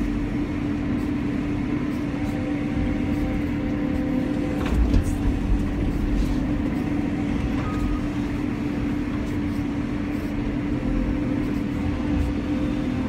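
Cat 320 hydraulic excavator working, heard from inside the cab: a steady engine drone with a hydraulic whine that comes and goes as the boom and bucket move. A few low thumps come about five seconds in.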